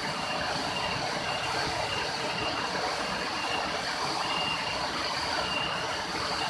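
Steady rushing roar of a waterfall about 20 metres high, falling water and spray making an even noise, with a faint high chirp repeating on top.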